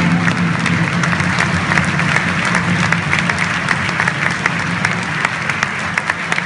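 A theatre audience applauding, many hands clapping together. Music under it fades out in the first second, and toward the end the applause thins into scattered separate claps.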